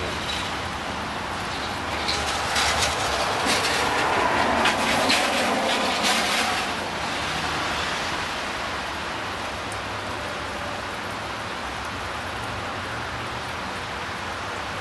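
Steady hiss of rain, with a passing vehicle swelling up about two seconds in and fading away by about seven seconds.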